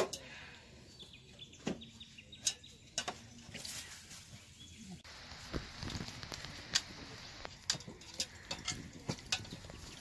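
Blue-and-gold macaw bathing in a steel bowl of water: irregular splashes and wing flaps as it dips and shakes, with a steady hiss rising from about halfway through.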